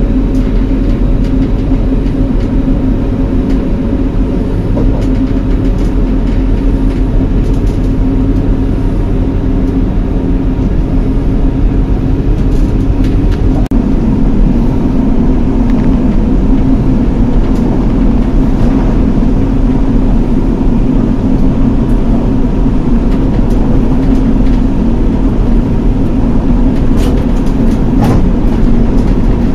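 Running noise inside a Class 175 diesel multiple unit at speed: a steady drone from its underfloor diesel engine mixed with wheel-on-rail rumble, with a few faint clicks near the end.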